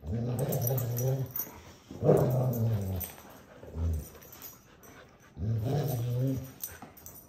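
Puppies growling in play during a tug-of-war over a toy: three long, low growls of about a second each, with a short one between the second and third.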